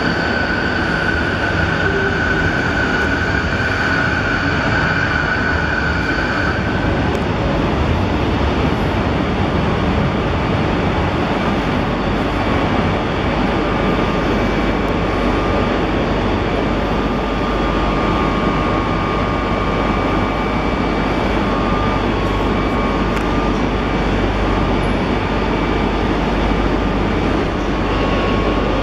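Renfe electric passenger train running beside the platform: a steady, loud rumble, with a high wheel squeal for about the first six seconds and fainter high whines later on.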